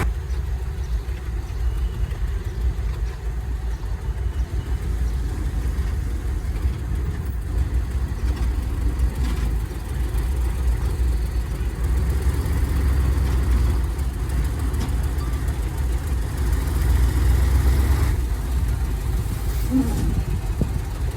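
Heavy diesel engine of land-clearing machinery running steadily, a continuous low rumble.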